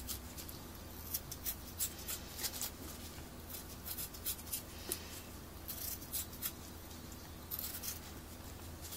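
A ceramic kitchen knife shaving the skin off a cucumber on a plastic cutting board: soft, irregular scrapes and light ticks of the blade, several each second.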